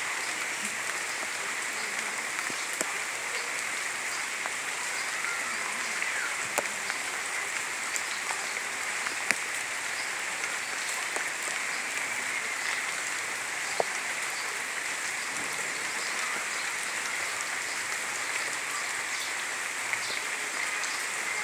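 Steady rainfall: an even hiss of rain falling on surfaces, with scattered louder drop hits now and then.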